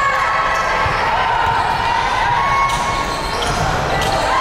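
Basketball game sound: a ball dribbling on the court, with irregular thumps, over steady arena noise and voices.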